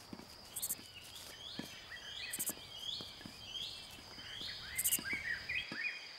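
Dry-forest ambience: a bird calling over and over in short curved notes about twice a second, over a steady high insect whine with a few brief, very high insect buzzes. Soft clicks and crackles are scattered through it.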